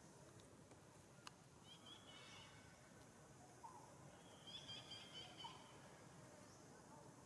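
Near silence: faint outdoor ambience with two brief bouts of faint, fluttering high chirps, about two seconds in and again from about four and a half seconds.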